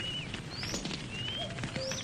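Campfire crackling with many small pops and snaps. Over it, birds repeat short, high chirps that sweep up and down several times a second.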